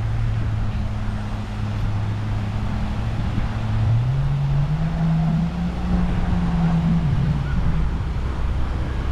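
A small engine running steadily. About four seconds in its pitch rises and holds higher for a few seconds, then falls back near the end.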